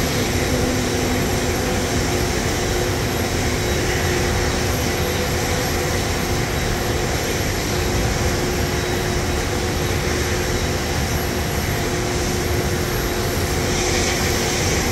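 Steady noise of jet airliners at the gates: a constant rush with several held whining tones and no change in level.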